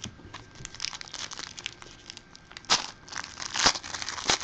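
A plastic trading-card pack wrapper crinkling in the hands in short, irregular crackles, with a few louder crackles about three and four seconds in.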